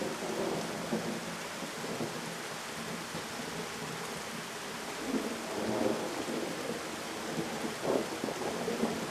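Heavy rain pouring steadily, with thunder rumbling underneath and swelling louder about halfway through and again near the end.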